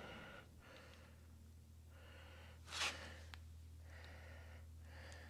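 A man breathing close to the microphone, with several breaths about a second and a half apart and one louder exhale about three seconds in, over a steady low hum.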